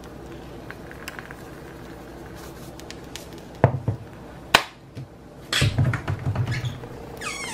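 Two sharp knocks about halfway through, then about a second of clattering handling noise from kitchen things being handled at the stove; near the end a cat meows once, a short falling call.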